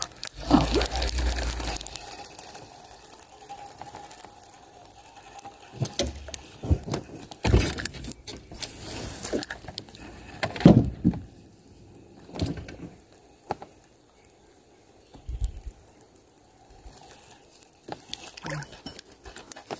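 Spinning reel being cast and retrieved: scattered clicks and knocks from the reel and rod being handled, with a low rumble in the first two seconds.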